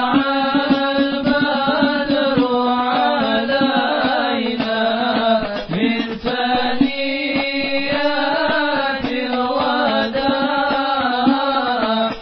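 Chanted devotional singing: a voice gliding in long melodic phrases over a steady held low note, with percussive hits throughout.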